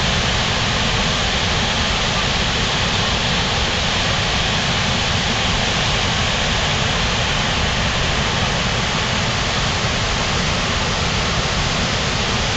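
Waterfall: falling water making a loud, steady, even rush that does not change.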